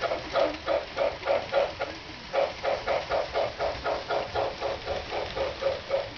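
Model steam locomotive's electronic chuffing sound from an MTH RailKing Pennsylvania K4, a steady beat of about four chuffs a second with a brief break about two seconds in. A low rumble of the train rolling on the track runs underneath.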